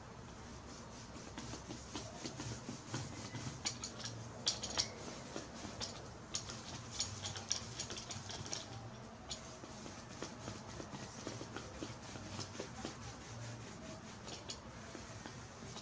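Small paint roller being rolled back and forth through wet fabric paint over a T-shirt and on a cardboard palette: a rubbing sound full of small, quick crackles, busiest in the first half and thinner later on.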